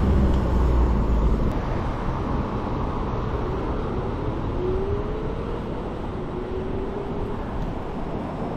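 Road and traffic noise heard from a moving scooter on a city street. A low rumble fades out about a second and a half in, and a faint rising whine comes and goes in the middle.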